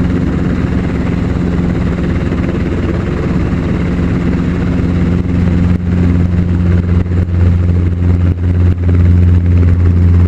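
Helicopter engine and rotor running in flight, heard from inside the cabin as a steady low drone, with brief dips in level in the second half.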